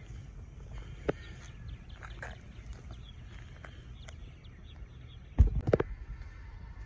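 Outdoor ambience with a low steady rumble and birds chirping faintly, then a quick cluster of loud thumps about five and a half seconds in.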